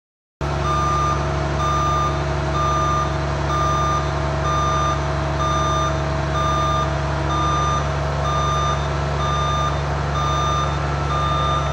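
A heavy vehicle's backup alarm beeping about once a second over its diesel engine running steadily; the sound starts abruptly about half a second in.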